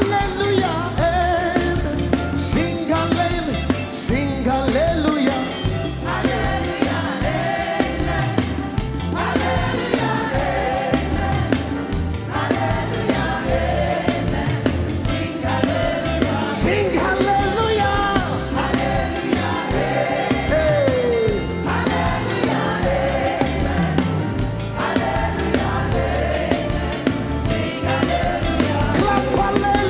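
Live gospel worship music: a band playing with voices singing over a steady beat.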